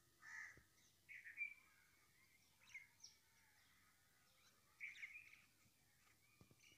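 Faint bird chirps, a few short calls spread out, over near silence.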